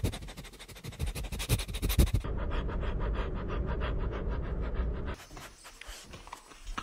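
A small puppy panting in fast, even breaths, until about five seconds in.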